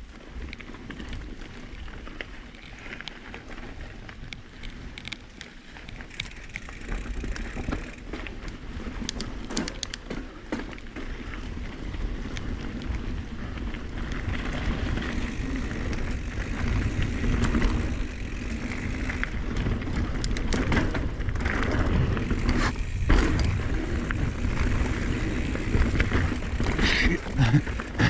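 Kona Process 134 full-suspension mountain bike ridden along a dirt trail: tyres rolling and the chain and frame clattering over bumps, getting louder as the ride speeds up partway through, with clusters of sharp rattles.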